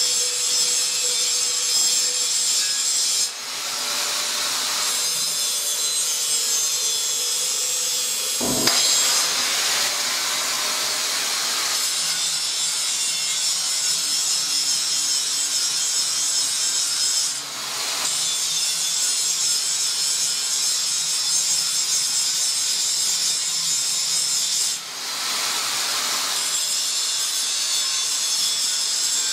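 Angle grinder with its disc pressed against a steel block in a vise, a steady high hissing grind of abrasive on steel. The level dips briefly three times, and a single sharp knock sounds about eight and a half seconds in.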